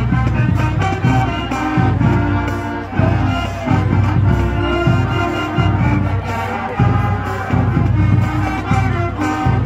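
Marching band playing at full volume, with brass over a steady drum beat and a heavy low bass line.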